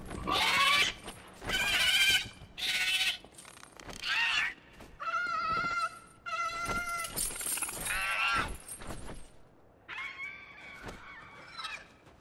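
Young dragon screeching, a film creature sound effect: about nine separate cries, each under a second long, some sliding up or down in pitch.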